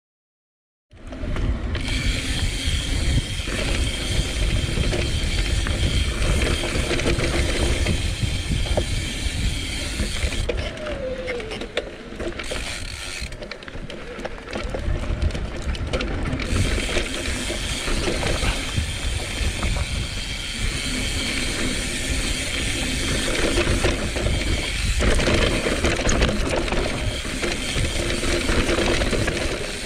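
Mountain bike riding down a dirt singletrack, heard from the bike itself. The rear freehub's ratchet buzzes as the rider coasts, over tyre-on-dirt noise, drivetrain rattle and a low wind rumble on the mic. The sound starts about a second in, and the high buzzing drops out a couple of times.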